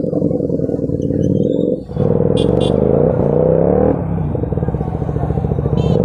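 Sport motorcycle with an aftermarket exhaust running at low revs in slow traffic. The throttle is shut briefly just before two seconds in, then opened again, and the engine note rises for a couple of seconds before settling. Short horn beeps sound twice around the rise and again near the end.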